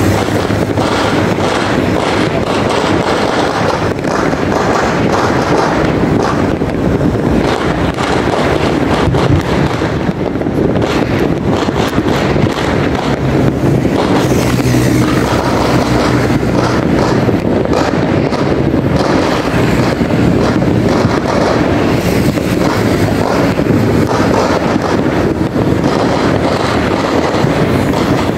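Dense, steady din of many distant firecrackers and fireworks going off across the city at once: a continuous crackle of small pops over a low rumble, with no single bang standing out.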